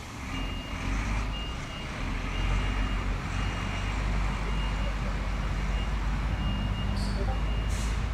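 Fire truck engine running with its reversing alarm beeping, a short high beep about every two-thirds of a second. Two short sharp noises come near the end.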